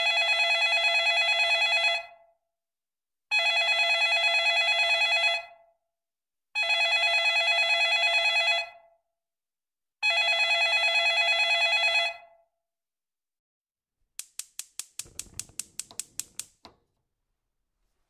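Telephone ringing: four trilling rings of about two seconds each, with a short pause between them. About fourteen seconds in, a quick series of about a dozen sharp clicks follows.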